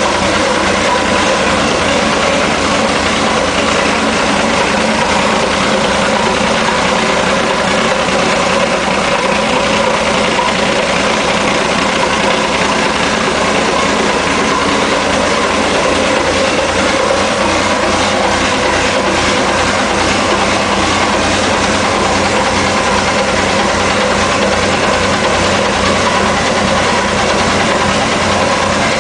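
Hino K13C turbocharged inline six-cylinder engine, converted from diesel to run on CNG, running steadily at constant speed.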